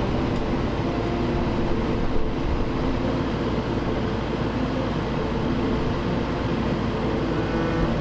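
Compaction machine running steadily while compacting crushed-stone backfill, a constant heavy mechanical rumble with no pauses.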